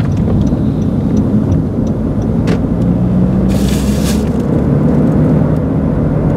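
Car driving, heard from inside the cabin: steady engine and road noise, with a brief hiss a little past halfway.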